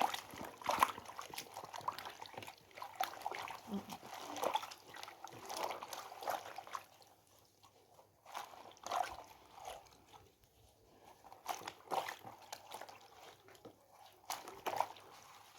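Food preparation: irregular knocks, crunches and small splashes of liquid, with no steady rhythm.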